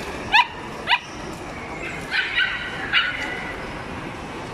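Puppies yipping: about five short, high yips, two within the first second and three more around two to three seconds in, over a steady background hubbub.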